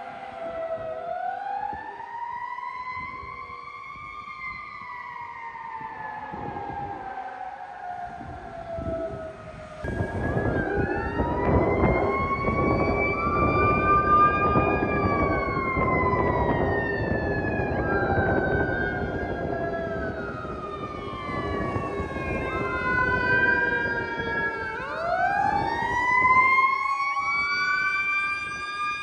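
Fire apparatus sirens wailing, two or more slow rising-and-falling wails overlapping as the trucks respond to an alarm. About ten seconds in, a loud low rumble of heavy truck engine and road noise joins them and fades again near the end.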